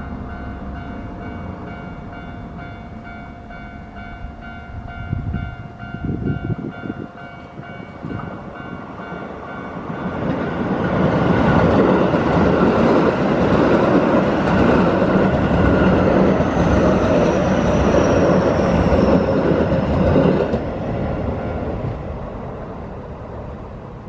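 Japanese level-crossing warning bell ringing in a steady, rapid ding pattern while a Keio Line commuter train passes over the crossing. The train is loudest for about ten seconds in the middle, with a falling whine during its last few seconds. The bell stops a little after the train has cleared.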